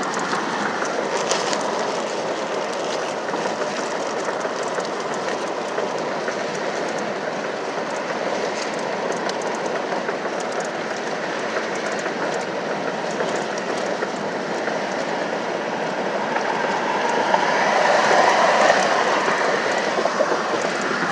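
Steady vehicle running noise heard from inside, a continuous rumble and rush that swells briefly near the end.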